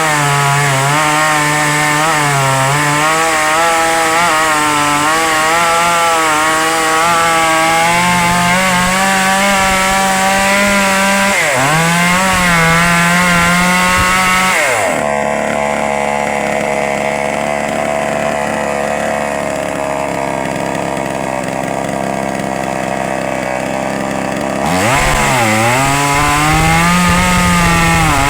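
Two-stroke chainsaw engine running at high revs. Its pitch dips briefly and climbs back twice as the throttle is let off and reopened, and it sounds duller for about ten seconds in the middle.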